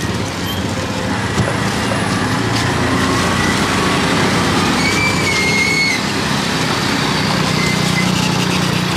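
Busy street ambience of steady traffic noise with engines running. A brief high-pitched tone sounds about five seconds in.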